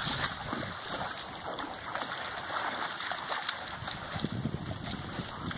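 Dogs splashing and wading through shallow river water, over a steady rush of water.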